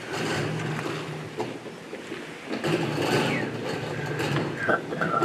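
Indistinct voices talking, with scattered knocks and clatter from people moving things about on a stage during a scene change.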